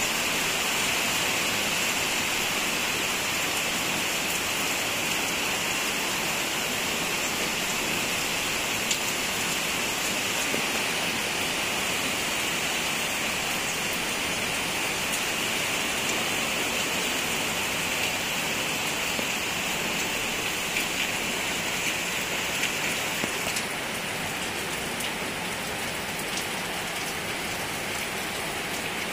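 Steady rain falling, an even hiss with a few sharper drop taps here and there. It eases slightly in the last few seconds.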